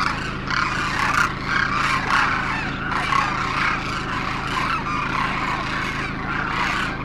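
A flock of demoiselle cranes calling, many calls overlapping without a break.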